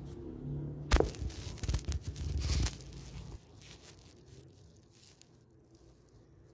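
A sharp knock about a second in, followed by about two seconds of rustling and scraping, like fabric and a handheld phone being moved about.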